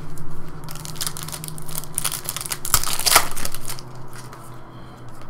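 A trading-card pack wrapper crinkling and tearing open, a dense crackle with sharp clicks lasting about three seconds, then quieter rustling as the cards are handled.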